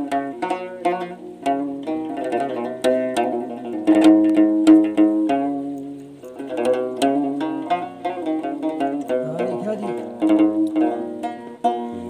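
Moroccan loutar, a long-necked lute with a skin-covered body, played solo in a free improvised taqasim: quick runs of plucked notes with a low string ringing steadily underneath.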